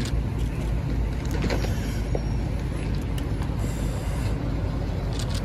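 A car fully involved in fire, burning steadily with a low rumble and scattered sharp crackles and pops.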